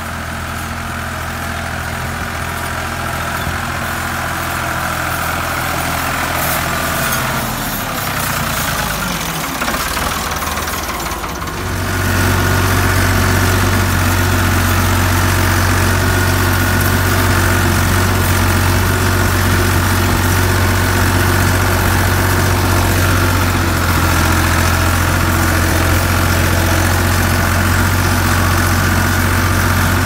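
Ford 4610's three-cylinder diesel engine running steadily under load, pulling a disc harrow. Around the middle the sound wavers and dips briefly, then comes back louder and steady, heard close up from the driver's seat.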